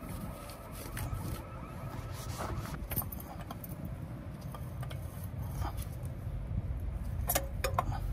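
Scattered clicks, clinks and short scrapes, thickest near the end, over a steady low rumble.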